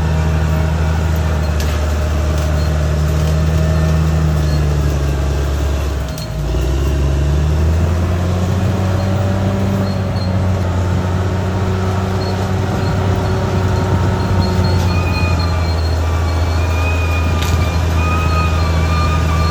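Caterpillar D6R XL bulldozer's diesel engine running steadily under load. It dips briefly about six seconds in, then picks up again. Near the end a wavering high whine joins in.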